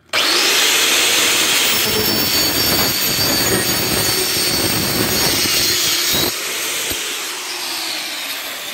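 Makita handheld circular saw cutting through a wooden slat: it starts abruptly and runs loud and steady for about six seconds. About six seconds in, as the cut finishes, the sound drops and the saw runs on more quietly.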